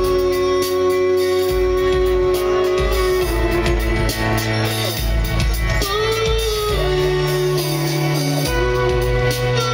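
A rock band playing live, heard from the audience: drums, bass, electric guitar and keyboards, with long held notes over a bass line that changes every second or two.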